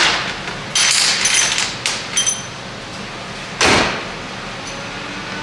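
Knocks and rattles of car body panels, then one loud slam about three and a half seconds in as the hood of a 2018 Camaro ZL1 is shut.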